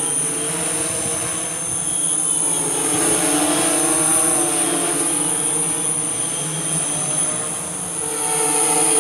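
DJI S1000+ octocopter's eight rotors running in a hover, a steady hum of several tones whose pitch wanders slightly up and down. It dips a little about 2 seconds in and again near the end.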